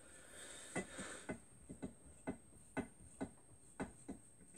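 An M5 first (taper) tap being turned by hand into a pre-drilled hole in aluminium extrusion, giving a run of light ticks, roughly two a second, as it cuts the thread.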